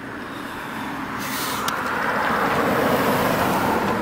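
A passing vehicle's road noise, swelling to a peak about three seconds in and then starting to fade.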